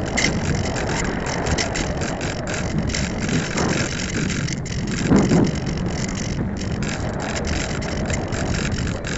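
Airflow rushing over a keychain camera strapped to an unpowered F3K discus-launch glider in flight, with a dense crackling rattle from the camera and airframe vibrating in the slipstream. A heavier surge of rushing air comes about five seconds in as the glider turns.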